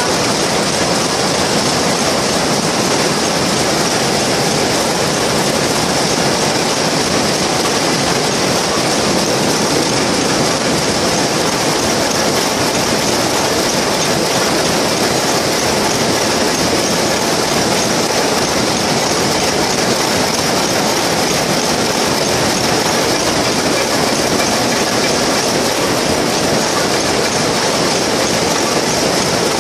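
Many shuttleless towel looms running together in a weaving shed: a steady, dense mechanical clatter with no let-up.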